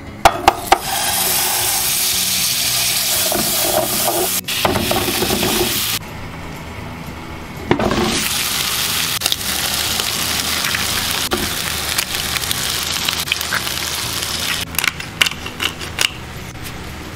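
Sausage slices frying in oil in a non-stick frying pan, sizzling steadily. The sizzle drops away for a moment about a third of the way in and then resumes. A few sharp clicks of utensil or pan come at the start and again near the end.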